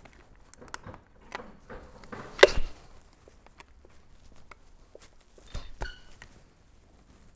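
Scattered metal clinks and taps of hand tools, such as a flathead screwdriver, working at the connecting rod and crankshaft of a torn-down Genesis Coupe 2.0T engine, where a spun rod bearing is stuck. The loudest is a ringing clink about two and a half seconds in, with two more ringing clinks near six seconds.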